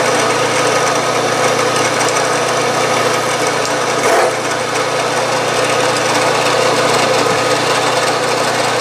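A drilling machine's spindle running steadily while a center drill cuts into a small brass pipe-fitting casting, giving an even machine hum with cutting noise over it. A brief louder scrape comes about four seconds in.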